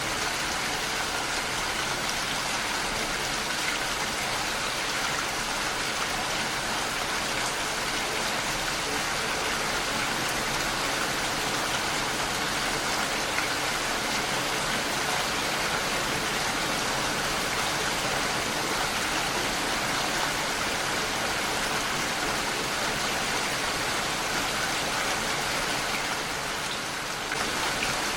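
Heavy rain falling steadily and beating on window glass as an even, dense hiss of drops, which eases slightly for a moment near the end.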